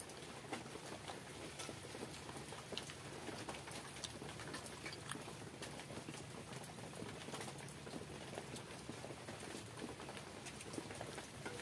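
Faint sounds of eating by hand: chewing and mouth smacks, and fingers scooping water-soaked rice (pakhala) from a steel bowl. It comes as a steady run of small wet clicks.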